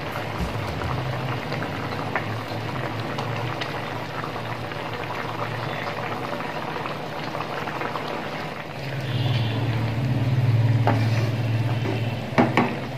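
Spicy mutton gravy boiling in a pan, a steady crackling bubble. A low hum swells about nine seconds in, and a few knocks near the end come as the gravy is stirred with a wooden spatula.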